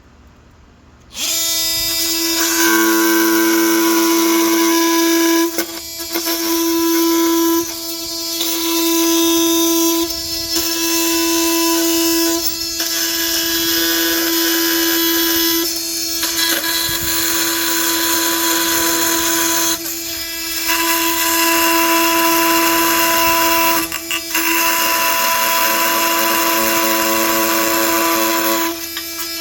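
Oscillating multi-tool with a Milwaukee Nitrus Carbide blade cutting through metal screws and bolts. It is a loud, steady, high-pitched buzz with a harsh metallic screech on top. It starts about a second in and breaks off briefly every few seconds between cuts.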